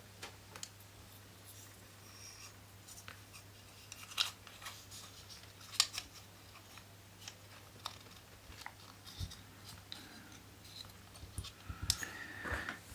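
Small hard plastic model-kit parts being handled and pressed together, giving scattered light clicks and taps, the sharpest about four and six seconds in.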